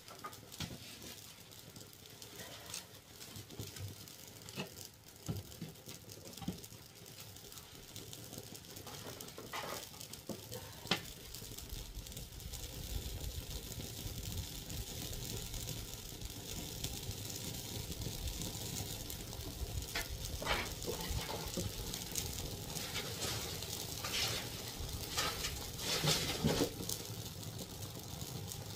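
Wood fire crackling in a traditional firebox (agungi) being stoked to heat the ondol room floor, with scattered knocks and scrapes of sticks being pushed in and rearranged. About twelve seconds in, a low rushing sound of the fire builds and holds as it catches.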